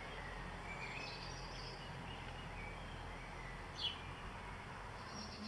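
Birds chirping and trilling in short, scattered calls, with one quick sweeping call nearly four seconds in, over a faint steady low hum.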